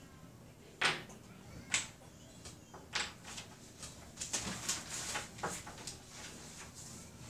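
Wooden shape-puzzle pieces knocking and clacking against a wooden form board and the tabletop as they are picked up and set down, in a string of irregular sharp knocks.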